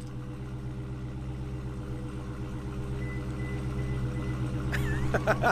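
Scion xB's engine idling steadily, slowly growing louder.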